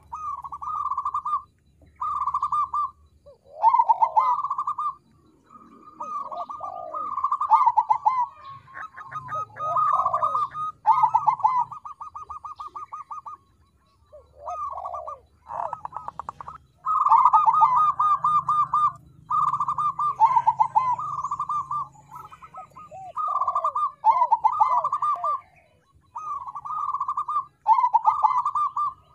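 Crossbred zebra dove (perkutut) cooing: a string of trilled coo phrases, each a fast run of notes, repeating every second or two with a short break about halfway through.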